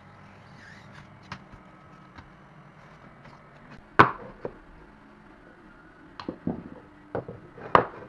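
Sharp wooden knocks of a wooden molding flask being set down and shifted on a wooden board, several in all, the loudest about halfway through and another just before the end.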